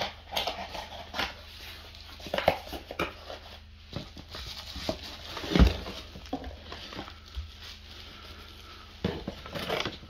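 A cardboard box being opened and unpacked by hand: irregular rustling, scraping and crinkling of the flaps, bubble wrap and paper, with one louder thump about halfway through.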